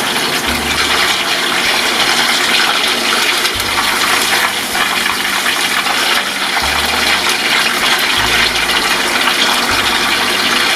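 Pieces of potato-starch-coated chicken thigh deep-frying in a pot of hot oil: a steady, loud sizzle.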